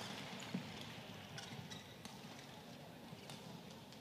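Badminton rally: a few sharp, spaced racket strikes on the shuttlecock over a faint arena hum that slowly fades.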